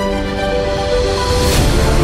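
Background theme music: held notes with a swell of noise rising to a peak about one and a half seconds in, where the music moves into a new section.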